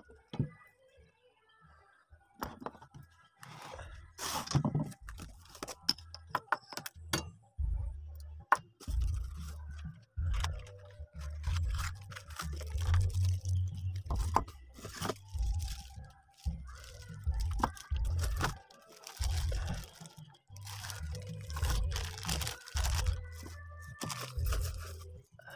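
Plastic bags and cardboard packaging being handled during unpacking: irregular crinkling, crunching and rustling with small knocks and low handling thumps.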